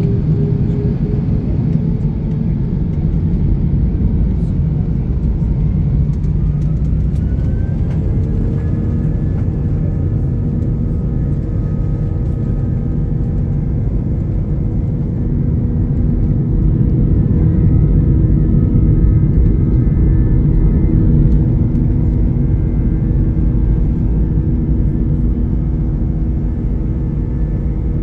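Airbus A321's jet engines running with a loud, steady rumble. About eight seconds in, their whine rises in pitch and then holds steady as they spool up, the sound of power coming on for the takeoff.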